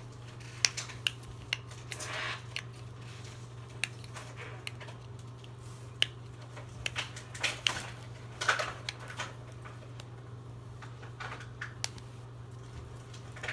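Small plastic toy packaging being handled: scattered light clicks and taps, with a couple of short crinkles, over a steady low hum.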